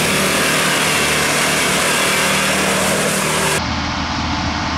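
Land Rover Defender's engine running as it drives through muddy water, with loud splashing and spray over the engine hum. About three and a half seconds in the sound cuts to a duller take of the engine and wheels splashing through a waterlogged field.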